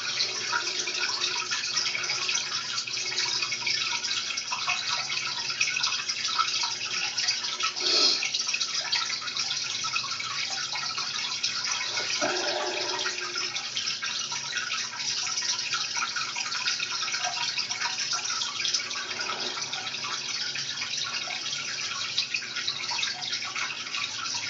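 Shallow creek water running and trickling steadily, with a few brief louder moments about 8, 12 and 19 seconds in.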